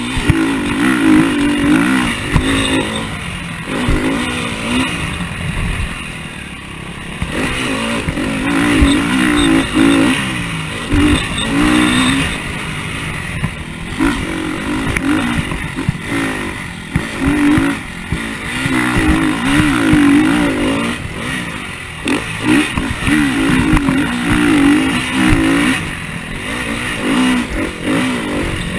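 KTM motocross bike's engine revving up and falling back over and over as it is ridden round a dirt track, heard from a camera mounted on the bike.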